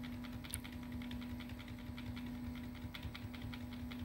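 Delete key on a computer keyboard tapped rapidly and repeatedly, several clicks a second, to enter BIOS setup while the PC boots. A steady low hum runs underneath.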